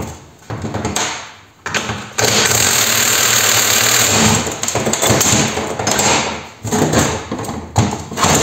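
Impact wrench running on the top nut of a car's front suspension strut to take the strut apart, in short bursts with one long run of about four seconds in the middle.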